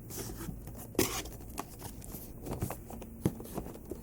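Cardboard and plastic toy packaging being handled: light rustling with scattered clicks and taps, and a louder brief crinkle about a second in.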